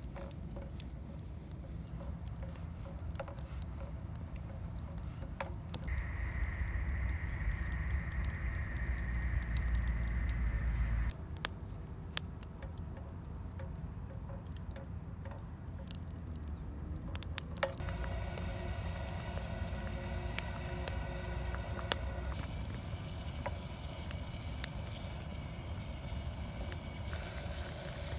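Small wood fire crackling with scattered sharp pops, one louder pop about two-thirds of the way through. A low rumble rises under it for about five seconds partway through.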